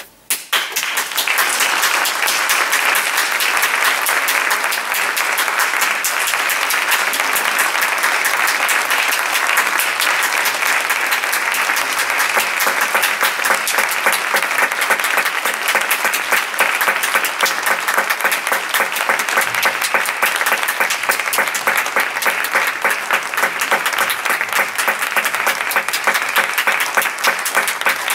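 Audience applauding, breaking out suddenly about half a second in and holding dense and steady.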